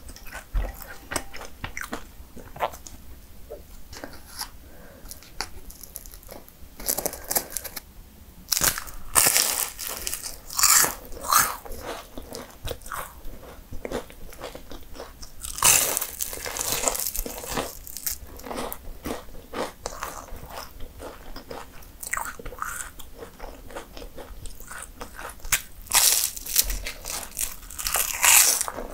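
Crisp, flaky pastry being bitten and chewed: crackly crunching that comes in louder clusters a few times, with quieter chewing in between.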